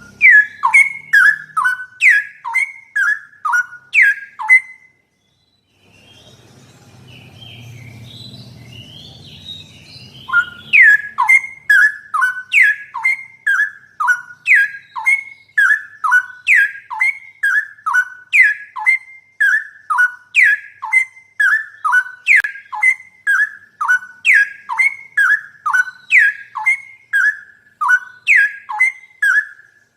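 Straw-headed bulbul (cucak rowo) song: loud, repeated falling whistled notes, about two a second. The song breaks off for about six seconds early on, leaving only a low hum, then picks up again at the same pace.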